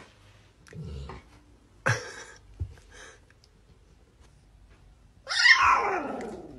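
Puppy giving a few short, soft yaps, then about five seconds in a louder, drawn-out howl that falls in pitch.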